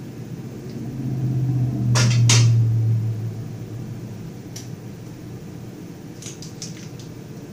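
Scissors snipping a plastic piping bag: two sharp snips about two seconds in, over a low hum that swells for a few seconds and fades. Light clicks and crinkles of the plastic bag being handled follow near the end.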